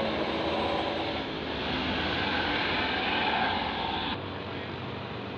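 Medium tour bus's diesel engine running as it passes, swelling to its loudest about three seconds in. The sound falls off suddenly a little after four seconds in.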